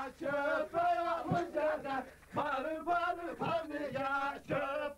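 A man singing a Turkish folk song (türkü) in long, wavering phrases with short breaks between them.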